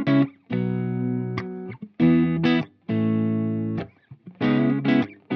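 Music: a guitar playing held chords, several in a row with short breaks between them, before any singing comes in.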